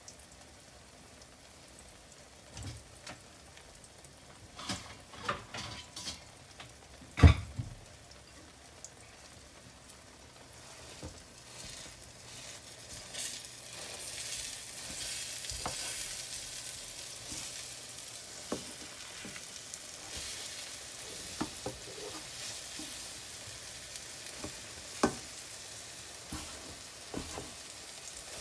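Egg pancake sizzling in a nonstick frying pan, with a wooden spoon and a plastic turner tapping and scraping against the pan. A sharp knock about seven seconds in is the loudest sound; the sizzling gets louder from about halfway.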